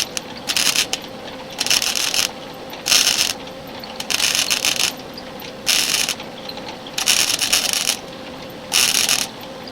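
Welder laying a series of short tack welds on 16-gauge sheet steel. There are about eight brief crackling bursts, roughly one a second, each under a second long, over a faint steady hum.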